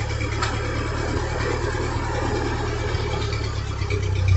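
Farm tractor engine running steadily at low speed as the tractor is maneuvered, with a light click about half a second in.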